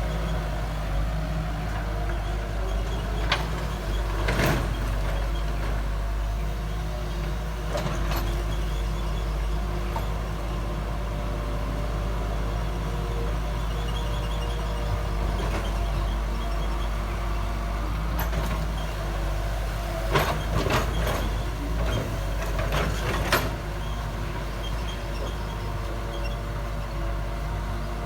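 Backhoe's diesel engine running steadily, with sharp metallic knocks now and then, clustered a few at a time about two-thirds of the way through.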